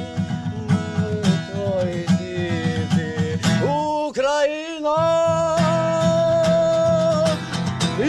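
Acoustic guitar strummed steadily with a voice singing along. Around the middle the strumming drops out for about two seconds while the voice slides upward. The voice then holds one long note as the guitar comes back in.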